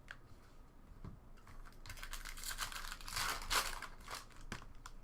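A foil trading-card pack wrapper being torn open and crinkled. A few small clicks come first, then a crackling rustle that builds for about three seconds and stops just before the end.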